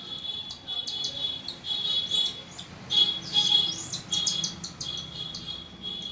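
Baby cockatiel giving a string of food-begging calls while being hand-fed from a syringe, about one call a second. The loudest calls come about three seconds in.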